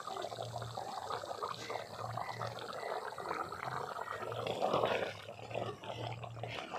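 Chicken curry in coconut milk bubbling at a simmer in a clay pot: an uneven, wet bubbling.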